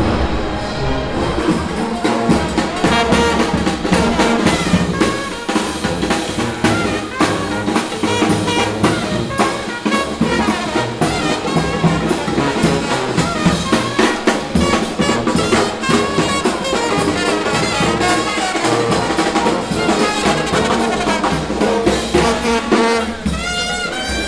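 Brass band playing jazz, with trumpet, trombone and drums.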